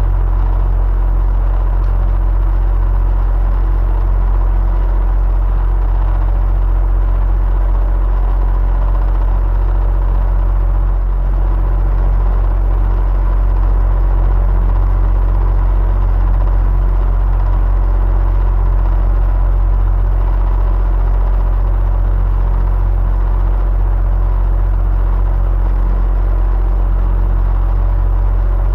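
Electric fan running steadily: a deep low hum with a faint steady whine over an even rush of air.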